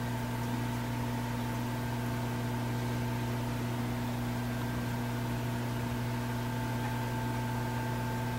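Steady electrical hum over an even hiss from aquarium equipment, unchanging in level and pitch.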